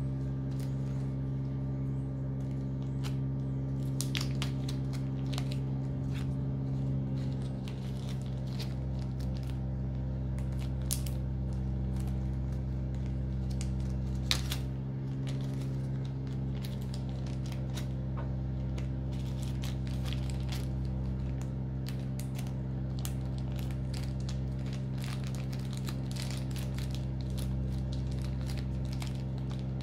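A steady low hum made of several even tones, with scattered faint clicks and ticks and one sharper click about halfway through.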